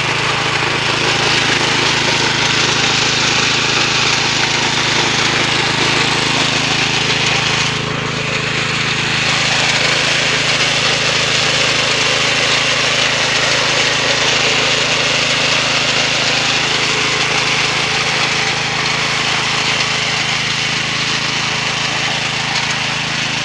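Fortune 5 hp petrol weeder's engine running steadily under load while its rotary tines till soil, dipping briefly about eight seconds in.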